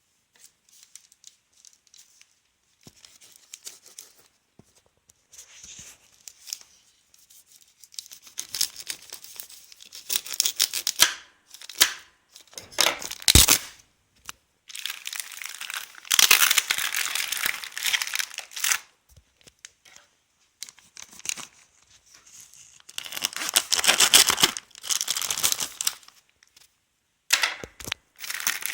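Shipping packaging of a toner cartridge being torn and crumpled open by hand: irregular bouts of tearing and crinkling, with long loud stretches about midway and about two-thirds through, and a sharp snap near the middle.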